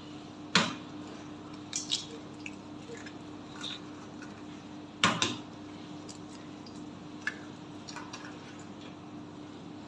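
Eggs cracked one after another against the rim of a stainless-steel mixing bowl: sharp taps, loudest about half a second in and again around five seconds in, with lighter clicks of shell on metal between. A steady low hum runs underneath.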